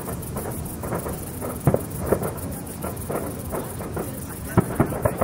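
Fireworks bursting: a steady crackling hiss with a run of sharp bangs, the loudest a little under two seconds in and three more close together near the end.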